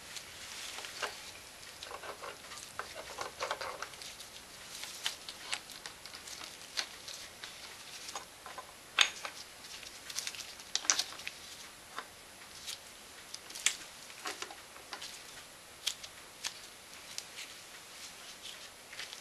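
Irregular sharp metallic clicks and clinks of a socket tool and wrench being fitted and handled on an engine's crankshaft nose, with a denser crackly rustle about two to four seconds in.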